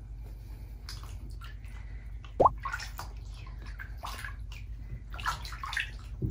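Water sloshing and dripping in a plastic basin as hands wash a wet kitten, in irregular splashes. About two and a half seconds in comes a single short, rising plip, the loudest sound here.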